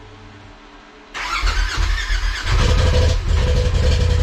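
A 2020 Polaris RZR Turbo S's turbocharged twin-cylinder engine is cranked by its starter about a second in. It catches within about a second and a half and settles into steady running. This is the first start after a Stage 6 big-turbo kit install.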